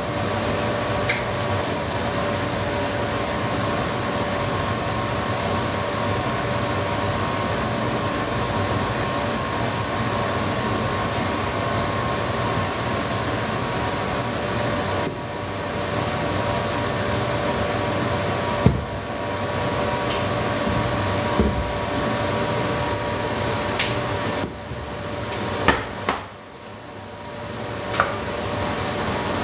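Steady mechanical hum with a constant whine, from a running kitchen appliance or fan, which drops away briefly near the end. Occasional sharp clinks of metal pans and utensils as cake batter is scraped from a stainless steel pot into a cake pan.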